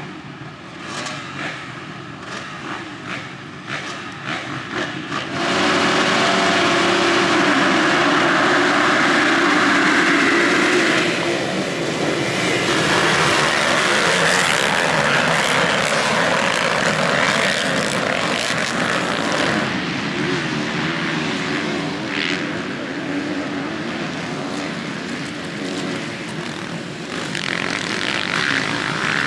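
A pack of motocross bikes revving unevenly at the start gate, then launching together at full throttle about five seconds in. Their engines merge into one loud, sustained sound as they race away.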